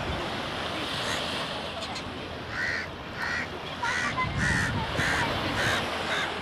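A crow cawing, a run of about seven short, evenly spaced caws starting about two and a half seconds in, over a steady hiss of surf and wind.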